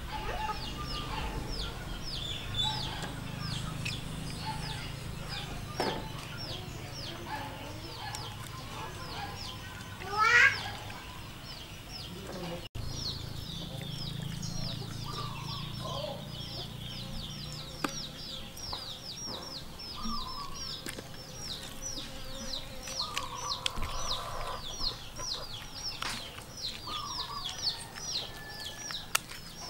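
Chickens in a yard: a dense run of high, short peeping chirps, several a second, with occasional clucks and a loud rising call about ten seconds in.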